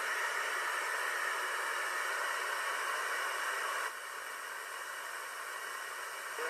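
Radio receiver hiss on the 2-metre amateur band, with no station audible between transmissions. The noise shifts abruptly and gets a little quieter about four seconds in, as the receiver is retuned to another frequency.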